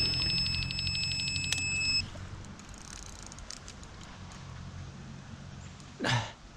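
Electronic carp bite alarm on a rod pod sounding a fast, unbroken run of high beeps as a fish takes line, cutting off sharply about two seconds in, once the angler has picked up the rod and struck.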